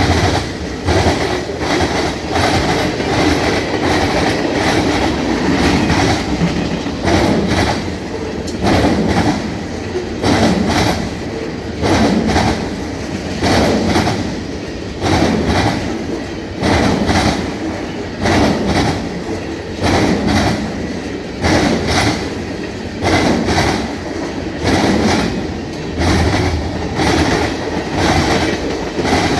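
Freight train wheels pounding over a jointed rail diamond crossing: repeated clusters of clickety-clack clanks as each truck hits the crossing's rail gaps, over a steady rolling rumble.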